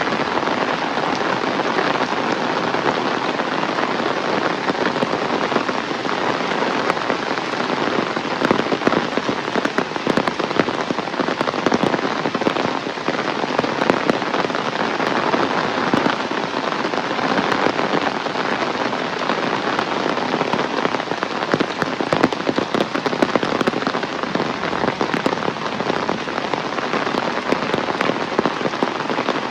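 Heavy rain pouring down steadily, a dense hiss studded with the patter of individual drops hitting surfaces.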